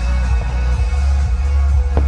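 Electronic dance music with a heavy, steady bass.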